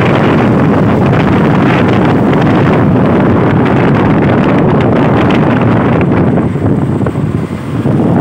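Wind rushing over the microphone of a moving vehicle, loud and steady, with a brief easing near the end.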